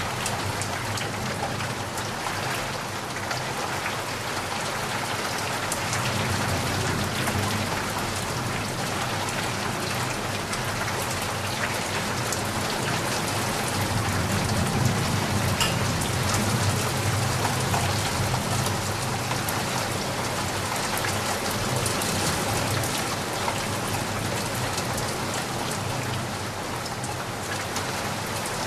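Steady rain falling on surfaces, an even hiss scattered with individual drop ticks over a low rumble.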